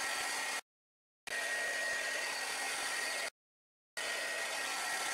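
Heat gun blowing steadily over a wet watercolor journal page to dry it: an even whoosh with a faint high whistle. It cuts off abruptly twice, leaving short gaps of dead silence before it resumes.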